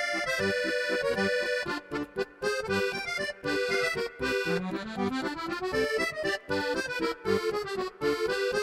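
Music: an accordion tune over a steady beat in the bass, with a rising run of notes about halfway through.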